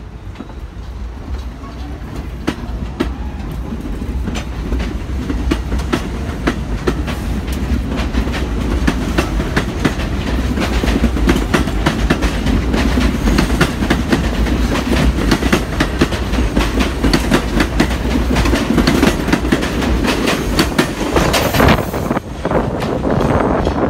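R42 subway train pulling out of the station and running past, getting louder as it gathers speed. Its wheels clack rapidly over the rail joints above a steady low rumble, with a brief high squeal near the end as the last cars go by.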